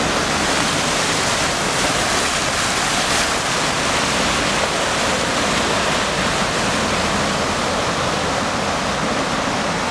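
Steady, even rush of floodwater flowing across a city street.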